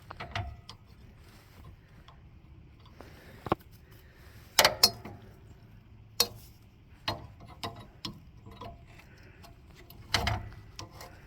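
Scattered sharp clicks and knocks, a second or more apart, from handling the lawn tractor's metal parts and cable.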